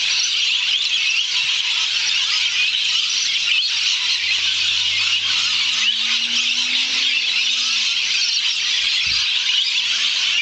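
A large flock of lorikeets screeching and chattering in a dense, shrill, unbroken din as they gather to roost for the evening. The noise is extreme.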